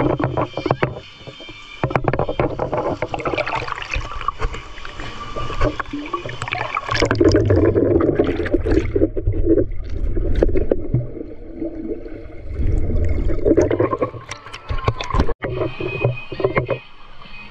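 River water splashing and sloshing in uneven surges, mixed with sharp knocks and a low rumble close to the microphone.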